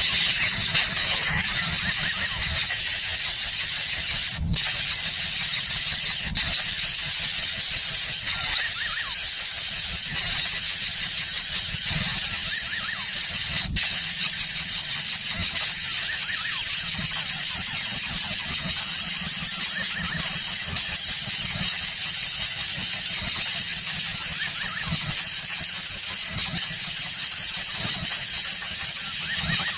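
Steady, loud high-pitched hiss, broken by a few very brief dropouts.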